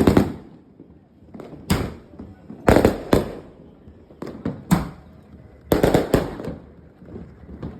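Fireworks from a finale board going off: sharp bangs with short echoing tails, coming singly and in quick clusters, the densest cluster about six seconds in.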